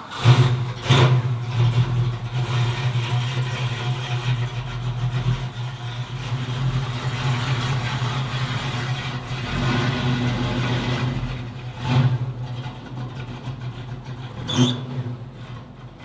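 A 1965 Ford Mustang's engine running at a steady idle, with a short rev about a second in and two more near the end.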